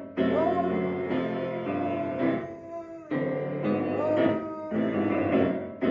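Piano chords played on an upright piano, with a dog howling along in long howls that rise and then hold over the chords.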